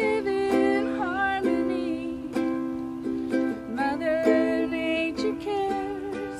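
Acoustic ukulele playing chords in an easy rhythm, with a higher wavering melody line above it.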